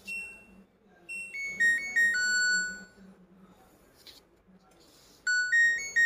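LG DFB424FP dishwasher's control panel beeping: a short beep, then a falling six-note electronic chime, and near the end a rising chime starts.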